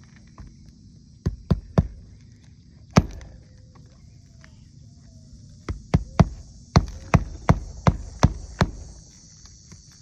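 Sharp knocks on a shingle roof, struck in quick runs of about two to three a second: three about a second in, one at about three seconds, then a longer run of about eight in the second half.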